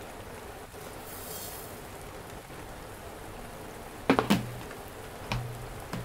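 Rice scooped with a plastic measuring cup from a plastic storage container, with a brief hiss of grains about a second in. The container's plastic lid is put on and pressed shut: a quick pair of hollow knocks about four seconds in and single knocks near the end. A steady hiss of heavy rain runs underneath.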